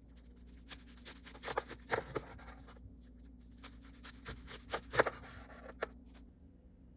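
Chef's knife slicing down through a stack of raw cabbage leaves, perilla leaves and beef on a stainless steel surface, with crisp crunching. There are two cuts, about two seconds and about five seconds in, and the second is the sharper.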